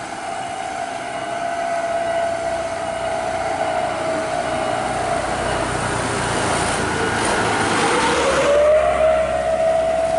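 Truck and coach engines labouring up a hill, a steady drone that sinks slightly in pitch. About seven seconds in there is a rush of engine and tyre noise as the truck passes close by. Then the drone rises in pitch as the coach comes on.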